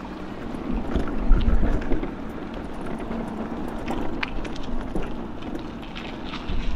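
Wind buffeting the microphone of a rider on an e-bike rolling downhill, with gusts of low rumble strongest about a second in. Scattered small clicks and rattles sound through it.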